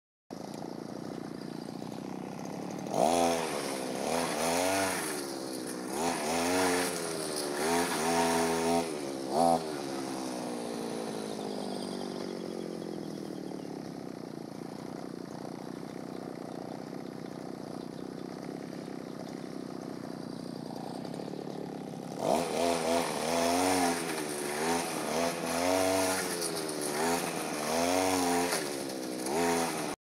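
Brush cutter's small engine revving up and down again and again. For a stretch in the middle it eases to a steadier drone whose pitch slowly sinks, then the revving picks up again.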